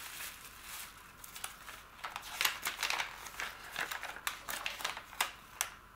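Thin plastic bag crinkling and folded paper sheets rustling as they are handled and unfolded by hand, with a run of sharp crackles from about two seconds in.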